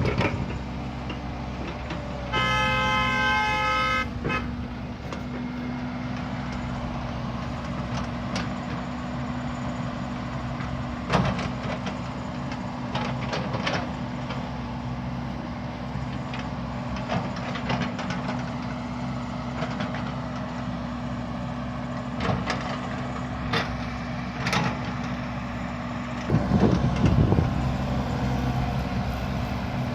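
Heavy diesel earthmoving machinery, an excavator and dump trucks, running steadily with a deep engine drone. A vehicle horn sounds once, for under two seconds, about two seconds in. Short knocks and clanks are scattered throughout, and the engine rumble swells louder near the end.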